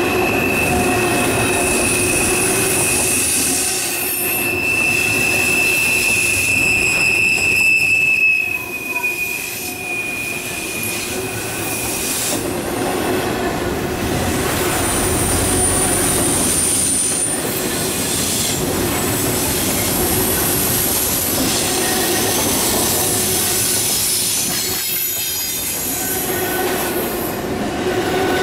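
Double-stack intermodal well cars rolling past on a curve: steel wheels rumbling and clacking over the rail joints, with thin high-pitched wheel squeals that come and go as the cars take the curve.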